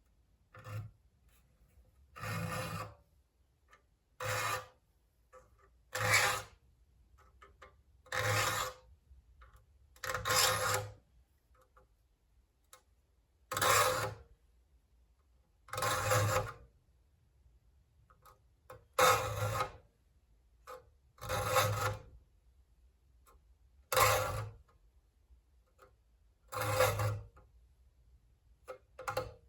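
A file sharpening the teeth of a foxtail saw (handsaw), with rasping strokes about every two to three seconds, about a dozen in all.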